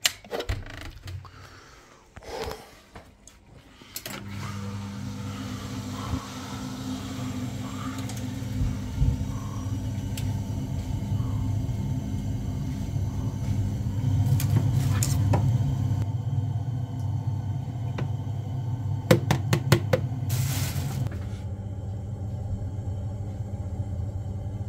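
Ideal Mini C24 combi boiler switching on and running. A few clicks come first, then a steady low hum starts about four seconds in and carries on. A quick run of clicks and a short hiss come near the end.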